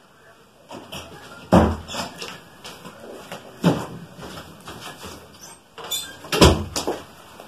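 Knocks and bumps of a person moving about a room, with three louder thumps about a second and a half, three and a half and six and a half seconds in, and lighter clicks between them.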